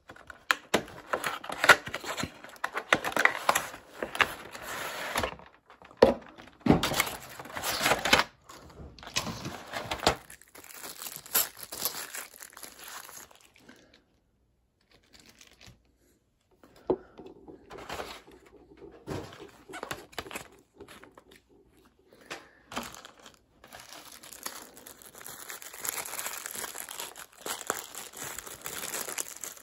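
Box packaging of a model airliner crinkling and rustling as it is handled and the model is pulled out, with a few light knocks; it goes nearly quiet for a few seconds about halfway through.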